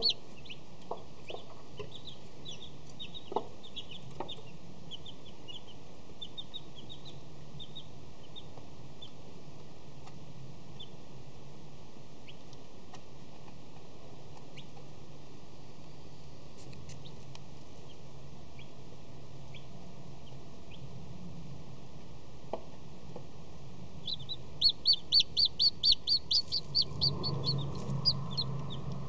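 A hatching chick peeping from its broken shell: scattered short high peeps at first, then near the end a fast run of loud peeps, about four a second, over a low hum.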